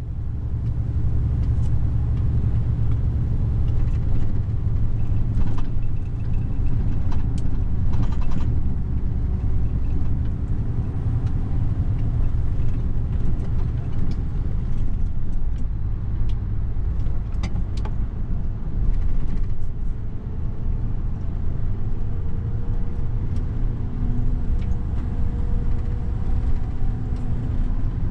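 Mercedes Actros truck's diesel engine and tyre noise heard from inside the cab while driving, a steady low drone with a few brief clicks scattered through it.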